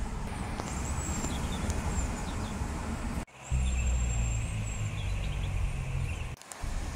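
Outdoor ambience: a steady low rumble of road traffic, with faint high chirps over it. The sound breaks off sharply for a moment about three seconds in and again near the end, then the rumble returns.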